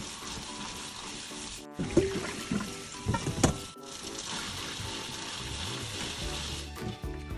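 Tap water running into a stainless steel mesh strainer full of black soybeans in a sink, while a gloved hand rubs and swishes the beans, with a few louder splashes in the middle.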